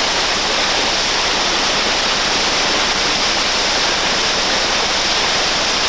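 Whitewater rapid running loud and steady: a continuous rush of churning river water.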